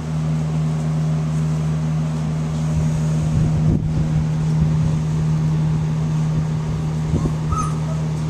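A steady low mechanical hum, with a few soft knocks and rustles about three seconds in and again near the end.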